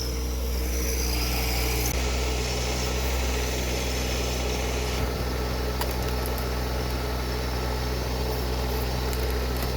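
TYM 264 compact tractor's diesel engine running steadily at an even speed, with a couple of faint ticks about six seconds in.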